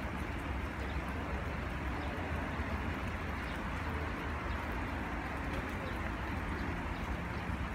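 Steady outdoor background noise with a low rumble.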